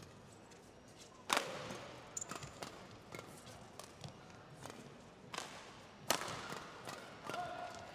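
Badminton rackets hitting a shuttlecock in a fast doubles rally: two loud smacks about a second in and about six seconds in, with lighter, quicker hits and players' footwork on the court between them.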